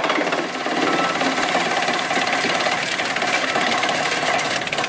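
ŻEFAM DVBA electric wood chipper-shredder running, a loud, steady, dense fast rattle, while its feed conveyor carries a clump of material toward the intake.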